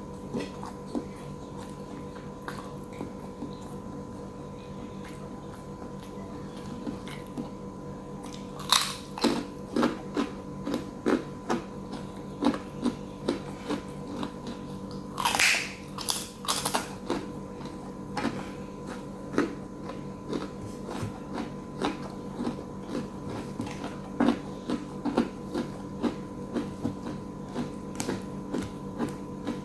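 Close-miked eating: a person chewing and biting food. Sharp crunchy clicks start about a third of the way in and come every second or so, loudest near the middle.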